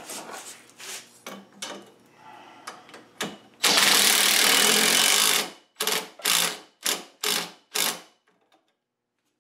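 Cordless drill boring a quarter-inch hole through PVC pipe clamped in a vise: a few handling knocks, then the drill runs for about two seconds, followed by five short trigger bursts.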